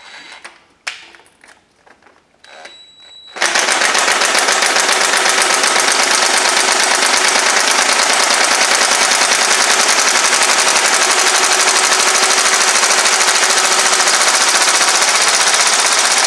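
Cordless impact wrench hammering steadily on a corroded exhaust manifold nut, its speed slowly raised, after a few seconds of small clicks as the socket is fitted. The loose-fitting 12 mm socket is slipping on the nut instead of turning it.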